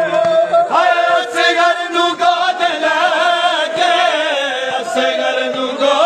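Chanting of a Punjabi noha, a Shia mourning lament, sung as one long drawn-out note that wavers and slowly sinks in pitch.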